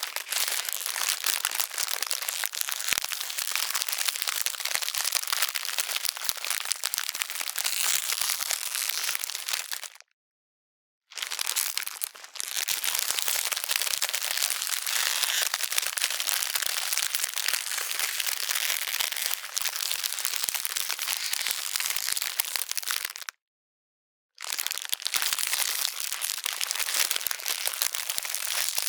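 Ice cracking sound effect: dense, continuous crackling and crunching made of many small cracks. It comes in three long runs, cut by two brief silent gaps, about ten seconds in and again about two-thirds of the way through.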